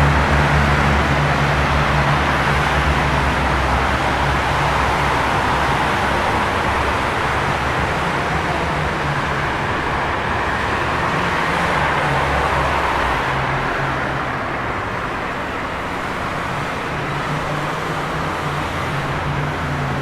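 Traffic in a jam: a steady wash of car engine and road noise, with a low engine hum from a nearby vehicle that fades out about two-thirds of the way through.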